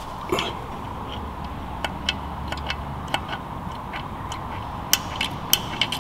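Pump oil can clicking as its trigger is worked, squirting oil into the dashpot of an SU carburettor to top up its damper: a string of small, irregularly spaced clicks over a faint steady hum.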